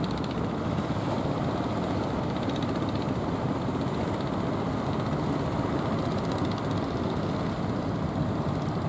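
Engines of outrigger fishing boats running steadily as the boats come in under power, a continuous dense engine noise with a fast pulsing.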